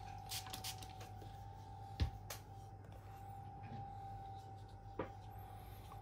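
Sharpening gear being handled on a work surface: a few light clicks near the start, then a sharp knock about two seconds in and another about five seconds in, over a faint steady hum.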